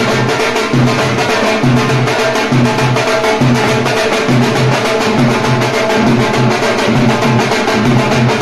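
Dhol beaten loudly with sticks in a fast, driving wedding-procession rhythm, deep strokes repeating about two to three times a second over rapid lighter strokes, with other band music underneath.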